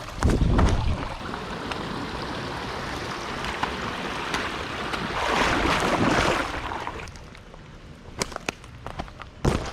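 Creek water running, a steady rushing hiss that swells louder about five seconds in. A low thump starts it off, and scattered clicks and taps come near the end.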